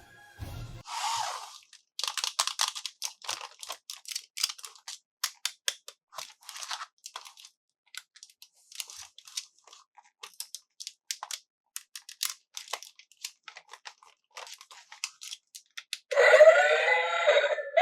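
Packaging being opened by hand: a quick run of crackling, tearing and crinkling clicks. Near the end a tune with synthetic singing starts.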